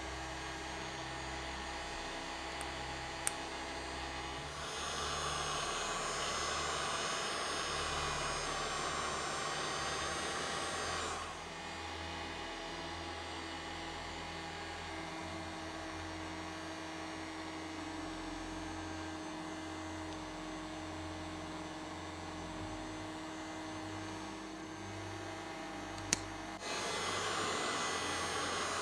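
Heat gun blowing hot air onto the iPad's cracked glass in two runs, about six seconds and then about two, each starting shortly after a sharp click. A steady low hum underlies it.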